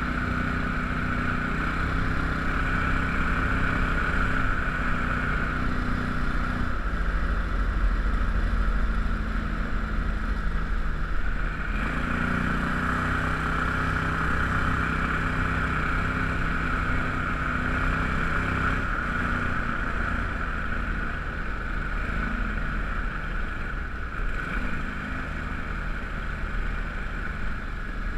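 31 hp Mud Buddy mud motor running steadily, pushing an aluminium duck boat along a river. The engine note drops about six seconds in, climbs back about twelve seconds in, and shifts slightly a couple more times as the throttle changes.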